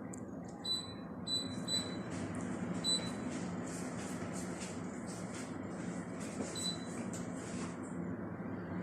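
Split air conditioner running just after start-up, a steady low hum from the unit. Several short, high-pitched pips sound over it.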